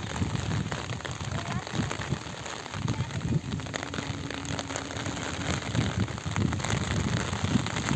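Steady rain falling on shallow floodwater, with many fine patters and gusty low rumbles.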